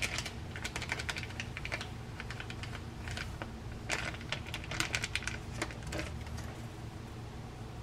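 Plastic packet of dried bonito flakes (katsuobushi) crinkling as it is handled and shaken over a plate, in several short bursts of crackle, with a low steady hum underneath.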